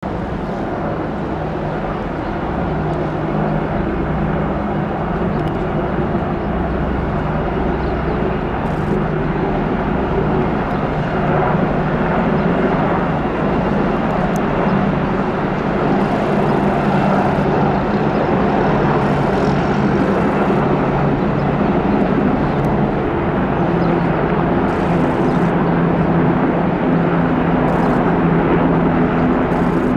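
AH-64 Apache and OH-58D Kiowa military helicopters flying past in formation: a steady drone of rotors and turbines that grows a little louder over time.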